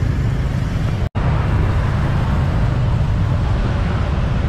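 Steady rumble of dense motorbike and car traffic, heard from a motorbike riding in the thick of it. The sound cuts out for an instant about a second in.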